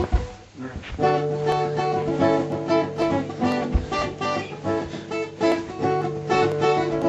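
A guitar-led song starts about a second in, with steady strummed chords and possibly a voice singing along.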